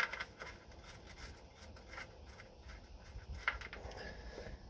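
Faint metallic scraping and light clicks as a loosened cap nut is turned off its stud by hand on the oil strainer cover plate under a 1968 VW Beetle 1500's air-cooled flat-four engine. A sharper click at the very start and another about three and a half seconds in.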